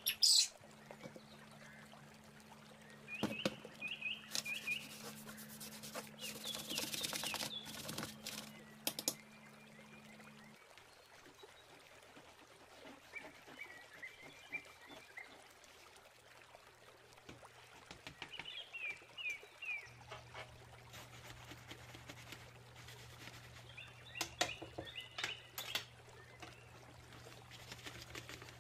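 Small birds chirping in short bursts of quick notes, with a few seconds of water splashing and pouring a few seconds in. A low steady hum sits under it, dropping in pitch about ten seconds in and changing again around twenty seconds.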